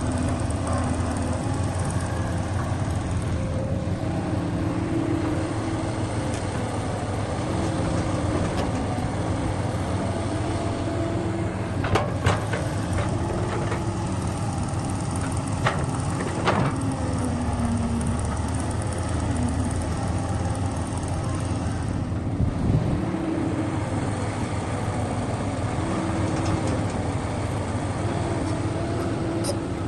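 Heavy diesel machinery running steadily, its engine note wandering up and down. There are a few sharp metallic knocks near the middle.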